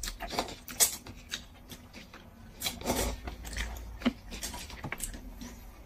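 Eating sounds: noodles slurped from a cup with chopsticks, with irregular short slurps, chewing and small clicks, a sharper one just before a second in.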